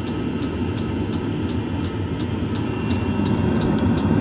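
Fuel-burning parking heater running: a steady low rumble of combustion from its flexible exhaust pipe, with an even light ticking about three times a second from its fuel dosing pump.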